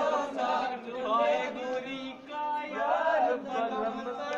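A group of men's voices singing and chanting together without instruments, several voices overlapping, with some held notes.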